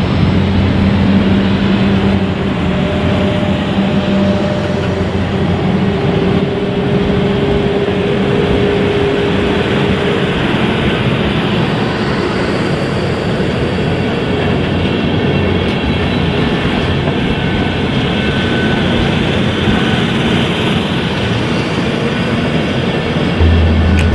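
DB InterCity passenger coaches rolling past at close range: a steady, loud rumble of steel wheels on the rails, with a few faint steady tones in the noise. Music comes in right at the end.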